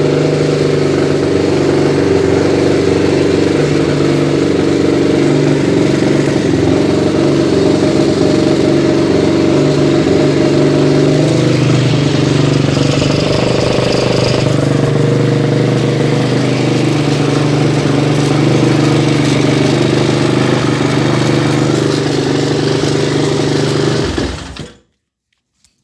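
Honda CRF450R's single-cylinder four-stroke engine running steadily at idle, then cutting off near the end.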